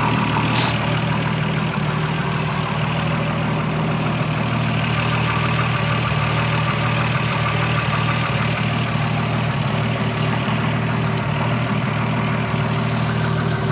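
Toyota Supra's 7M-GTE turbocharged inline-six idling steadily, with a fast, light, regular ticking over the engine note. The owner suspects the engine may have rod knock.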